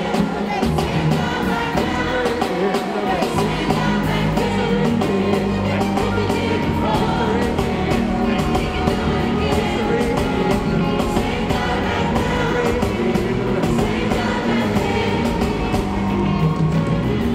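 Live gospel music: a male lead singer with backing vocalists over a band of keyboards, guitars and drums, with a steady beat.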